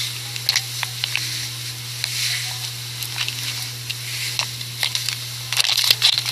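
Close-miked food sounds from an ASMR noodle video playing back: a hissing, crackling texture with scattered clicks, growing busier near the end, over a steady low hum.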